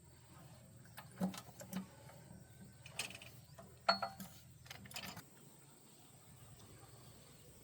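Metal tools and engine parts being handled: a series of sharp clinks and knocks over about four seconds, one with a brief ring.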